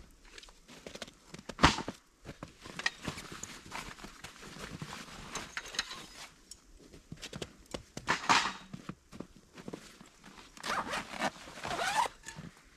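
Handling camping gear: a nylon carry bag rustling and metal poles knocking as they are pulled out of it, with one sharp loud knock about two seconds in. The loudest rustling comes near the end as the emptied bag is shaken out.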